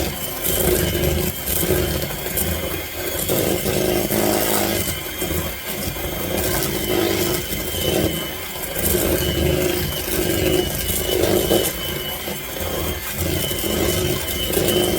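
Electric hand mixer running, its beaters mixing ingredients in a bowl until creamy; the motor's pitch swells and dips every second or two.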